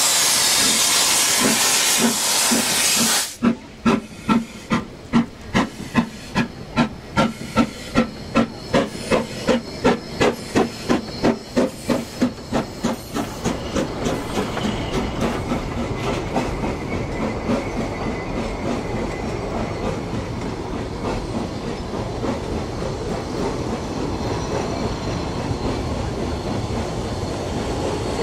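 Narrow-gauge steam locomotive pulling away: a loud hiss of steam cuts off suddenly about three seconds in, then the exhaust chuffs at about two to three beats a second, quickening as the train gets under way. The beats fade into the steady rumble and clatter of the carriages rolling past.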